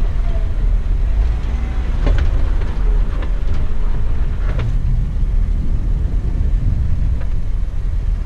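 Jeep driving a rocky off-road trail: a steady low rumble of engine and tyres, with a few sharp knocks about two, four and a half, and seven seconds in.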